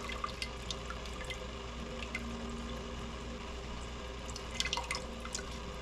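Lime juice dripping and splashing into a steel pot of jabuticaba pulp as a lime half is squeezed by hand: scattered small drips, busier near the end, over a steady low hum.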